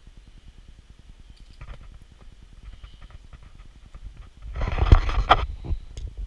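Handling noise on a handheld action camera's microphone: a low, fluttering rumble, then a loud scraping rustle lasting about a second, about four and a half seconds in.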